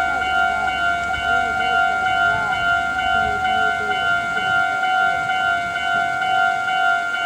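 Railway level-crossing warning bell ringing, an electronic ding repeated in an even, rapid rhythm. A low rumble runs beneath it and fades about two-thirds of the way through.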